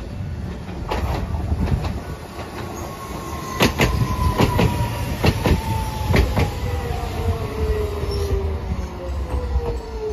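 Hiroshima Electric Railway 3950-series Green Liner articulated tram passing close by, its wheels clicking sharply over rail joints above a steady rumble. A whine falls slowly in pitch as the tram slows toward the stop.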